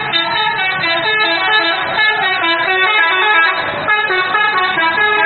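Indonesian bus 'telolet' horn: a multi-tone air horn playing a quick tune, its notes changing several times a second.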